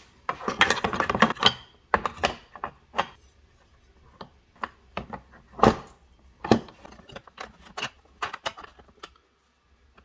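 Clicks and clinks of an aluminum hinge bracket and small bolts being handled and set against a hard plastic ATV storage lid: a quick rattling flurry at first, then separate sharp clicks every second or so.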